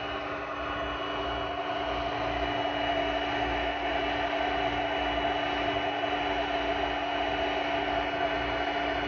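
Handheld magnetic induction heater's cooling fan running steadily, a constant whir with a steady low hum and a thin high whine.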